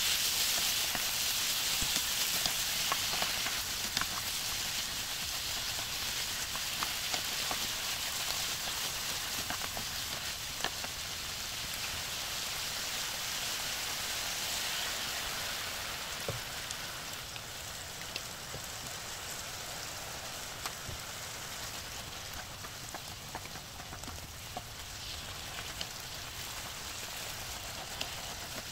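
Beef cubes and vegetables sizzling in an oiled frying pan: a steady frying hiss with scattered pops and crackles, easing slightly as it goes on.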